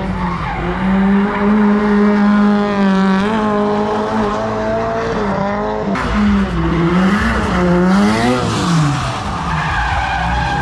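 Drift car engine held high in the revs as the car slides through a corner, its pitch wavering, then dipping and rising again near the end, over tyres screeching in the slide.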